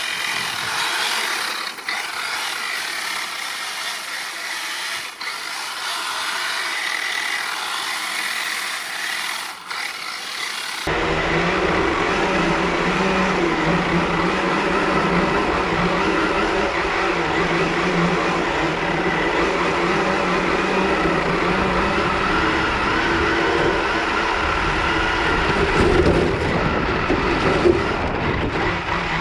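Kyosho DRX VE electric RC rally car running and drifting on ice, its motor and drivetrain whining over the noise of the tyres on the ice. About eleven seconds in the sound changes abruptly from thin and bass-less to fuller and louder.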